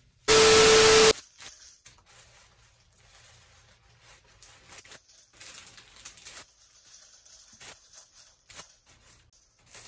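A loud hiss with a steady tone running through it, lasting under a second, near the start. After it, faint crinkling and rustling of tissue paper as a gift is wrapped by hand.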